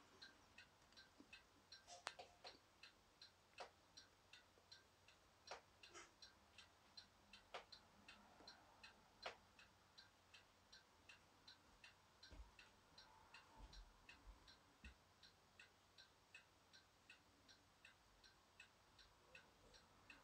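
French-style four-glass brass mantel clock ticking quietly and steadily, about three ticks a second. A few louder, sharper clicks fall irregularly over it in the first half.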